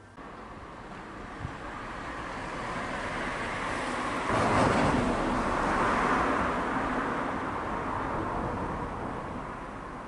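A car driving past, its tyre and engine noise swelling to a peak about halfway through and then slowly fading.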